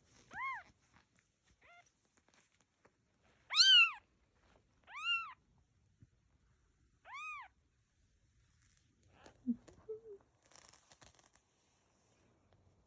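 Cat meowing: five short, high-pitched calls that each rise and fall, spaced a second or two apart, the third the loudest. Soft rustling and clicks follow near the end.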